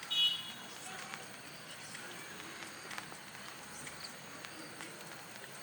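Quiet outdoor ambience with a short high-pitched chirp just after the start and a few faint ticks.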